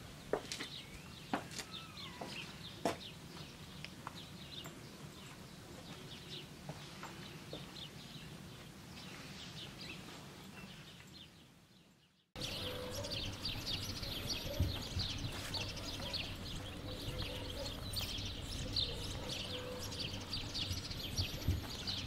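A few footsteps on stone steps at the start, then quiet outdoor ambience that fades out to silence about halfway through. After a cut, birds chirp and twitter busily and without a break over a rural outdoor background, with a few soft thumps.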